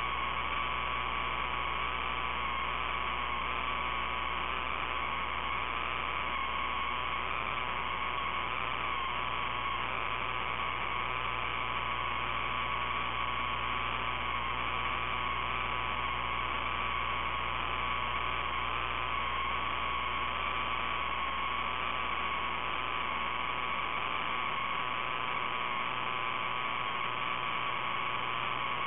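Steady electrical hum and static hiss, with a high whine that wavers slightly in pitch. There are no changes or separate events.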